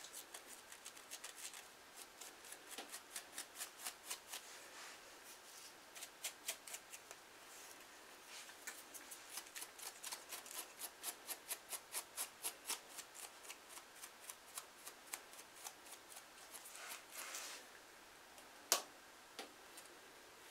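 A fine-tooth comb scratching across a dry, flaky scalp in quick, regular strokes, about three a second, in runs with short pauses, scraping loose dandruff flakes. A single sharp click near the end.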